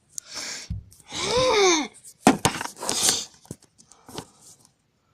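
A child's high, wordless vocal sound, falling in pitch, about a second in, with breathy noises around it, followed by a few sharp clicks and rustles of something being handled.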